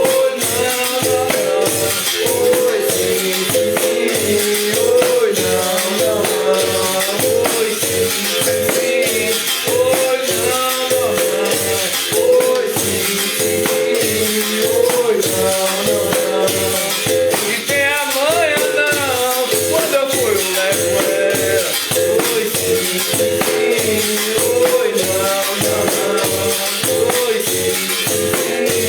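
Bamboo berimbau played in a steady rhythm, its string note switching between two close pitches. A caxixi rattle is shaken along with the strokes.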